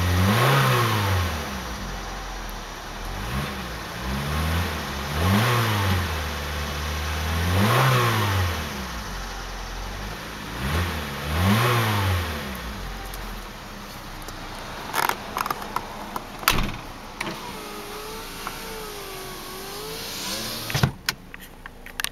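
1999 Nissan Sentra SE Limited's 2-litre 16-valve four-cylinder engine, heard from inside the cabin, revved while stationary: about five quick rises and falls in engine speed, then settling back to a steady idle. A few clicks near the end.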